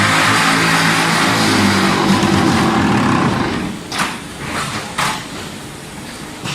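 Concrete block making machine running, a loud steady hum and rattle that stops about three and a half seconds in, followed by two sharp clanks about a second apart.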